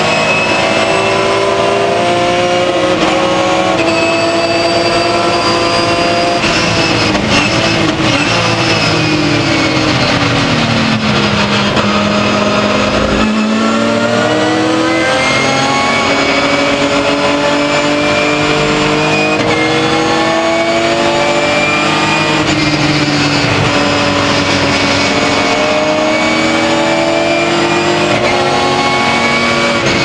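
The 3.2-litre S50B32 inline-six of a 1996 BMW M3 E36 race car, heard from inside the cockpit at racing speed. The engine note falls for several seconds as the car slows and shifts down, bottoms out about thirteen seconds in, then climbs again through a series of upshifts on the sequential gearbox.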